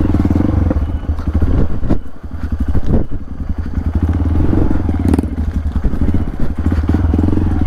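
Trail motorcycle engine running steadily at low revs, a continuous chug of quick, even firing pulses, with a few sharp knocks about two, three and five seconds in.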